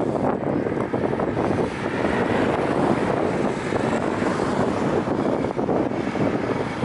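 Steady wind noise buffeting the microphone, a dense rushing sound that never lets up.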